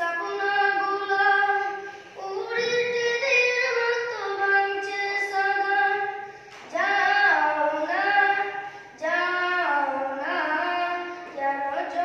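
A young boy singing solo without accompaniment, long held, gliding notes in phrases broken by short breaths.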